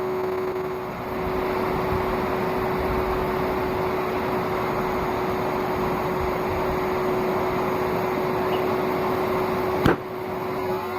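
Vacuum-cleaner motor used as a forge blower, running steadily with a constant whine over the rush of air. A single sharp click comes just before the end.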